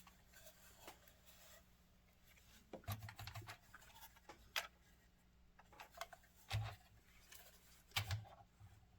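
Scattered light clicks and taps of small plastic HO-scale model train cars being handled and set down on the bench, over a faint steady hum.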